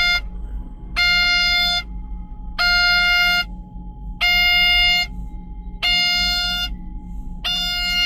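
Komatsu D375A-5 dozer cab warning buzzer beeping steadily, about six long beeps with equal gaps, over a low steady hum; it sounds with the ignition on while the monitor shows an active error code.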